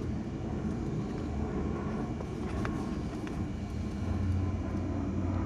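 Steady low background rumble that swells slightly about four seconds in, with a couple of faint clicks.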